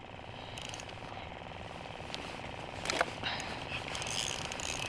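Ice-fishing spinning reel being cranked steadily against a hooked walleye, its gears giving a fast, even ticking whir. A brief sharp sound about three seconds in.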